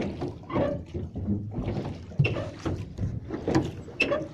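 Irregular knocks and clunks of a small boat being handled on the water, with some water sounds.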